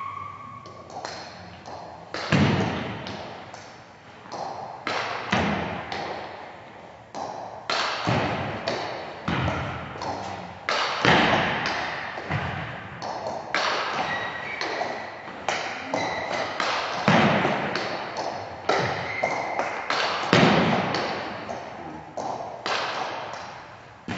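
Table tennis ball hit back and forth in a long rally: sharp knocks of paddle strikes and table bounces, roughly one a second, each with a short echo.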